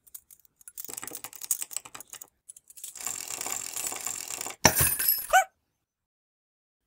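A metal chain rattling and clicking as it runs over a pulley, ending in a loud clunk about two-thirds of the way through. A short cartoon vocal squeak that bends in pitch follows just after.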